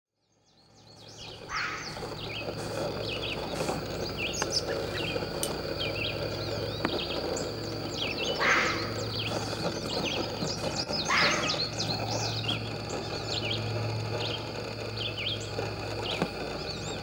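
Red fox barking: three short single barks spaced several seconds apart, over continuous chirping of small birds.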